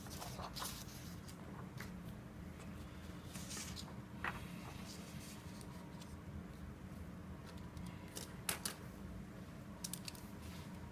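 Paper handled on a desk: a few short rustles and sharp clicks over a steady low room hum.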